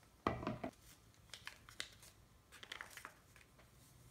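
Paper packet of powdered pretzel mix crinkling and rustling in the hands as it is tipped and poured into a plastic mixing bowl, in scattered short crackles, with a brief louder bump about a third of a second in.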